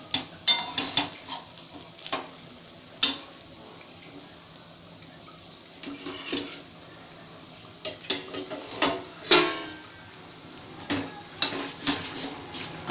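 Steel spatula scraping and clinking against a stainless steel kadai as fried rice is stirred and turned, in short bursts: several strokes near the start, one around three seconds in, then more from about eight seconds on. A low hiss of frying lies underneath in the quieter stretches.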